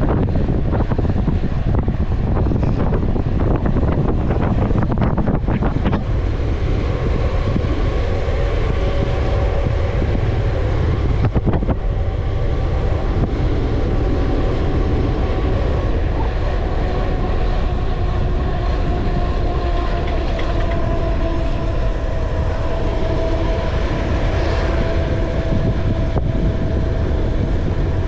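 Wind buffeting the microphone and tyre rumble from a mountain bike rolling fast down a paved road, with crackling clicks in the first few seconds. A steady whine runs over it from about six seconds in, its pitch sinking slowly in the second half.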